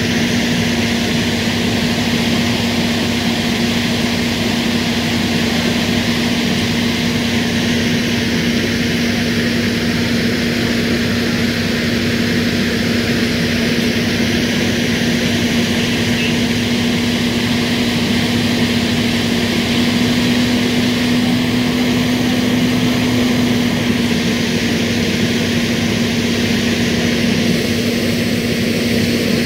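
Steady engine-like drone: a constant low hum under a loud, even hiss, unchanging throughout.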